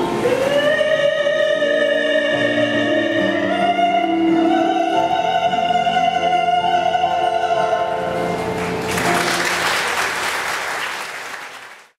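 A woman singing a long held final note over a keyboard accompaniment. The note steps up in pitch twice before the song ends about eight seconds in. Applause follows, then fades out at the end.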